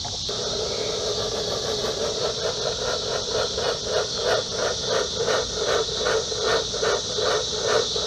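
Homemade smoke machine, converted from a fog machine, running and pushing smoke into the engine intake, with a rhythmic pulsing about two to three times a second over a steady hiss.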